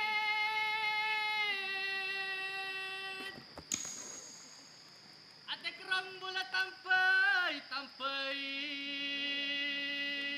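A woman's voice sustaining long, drawn-out notes: a high held note that steps down a little and breaks off, then after a pause a wavering, trembling passage, then a lower steady held note.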